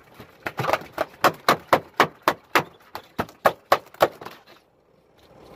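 A landed yellowfin tuna beating its tail against the boat's deck under a burlap sack: a fast run of sharp knocks, about four a second, that stops about four seconds in.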